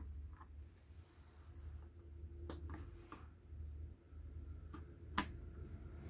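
A few scattered light clicks and taps, as of a glass kitchen scale and its plastic parts being handled, with the sharpest click about five seconds in, over a low steady hum.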